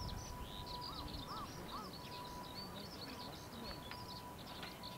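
Eurasian skylark singing: a continuous stream of rapid, high twittering and trilling notes. A few lower, arched notes come in about a second in.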